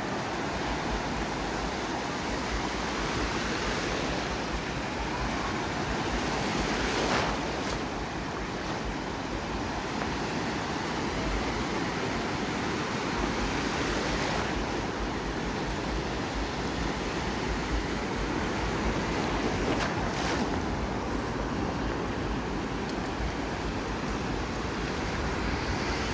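Sea surf washing steadily onto a beach, with a few louder breaking waves about seven, fourteen and twenty seconds in.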